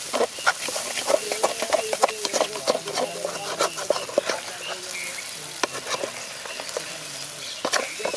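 Long metal ladle scraping and knocking against a large metal pan as chicken fry is stirred, in quick irregular strokes, over the steady sizzle of the meat frying.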